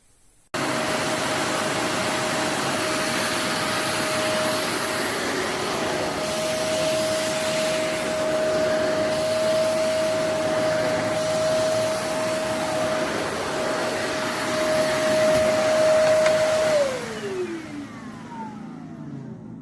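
Cecotec Conga Powerbag 2500 Compact Plus bagged canister vacuum cleaner (850 W) running steadily with a constant motor whine over the airflow noise, starting abruptly about half a second in. Near the end it is switched off, and the whine falls in pitch as the motor winds down.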